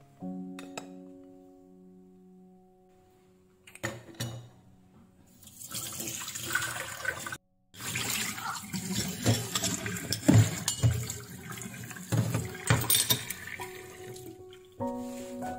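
Kitchen tap running into a stainless steel sink as a porcelain cup and saucer are rinsed by hand, water splashing with a few sharp knocks. Soft background music plays for the first few seconds and returns near the end.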